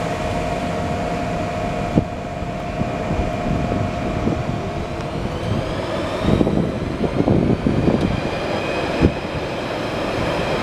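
Siemens Desiro electric multiple unit pulling away from the platform, its traction motors giving a whine that rises in pitch, over the rumble of the train and station.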